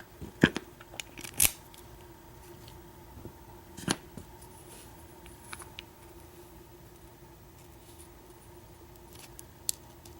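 A few isolated small metallic clicks and taps from a disassembled American 1100 padlock's parts being handled, spaced out with quiet stretches between them.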